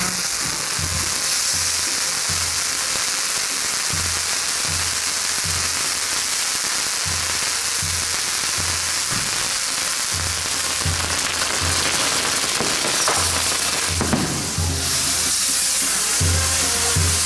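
Castillo fireworks tower burning, a steady hiss and crackle of spark fountains and spinning pinwheels. Music with a steady bass beat plays underneath.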